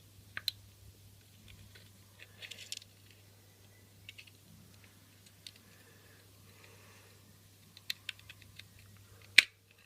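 Scattered small clicks and scrapes of a power bank's casing being pried at, ending in one loud sharp snap near the end as the battery plate comes free.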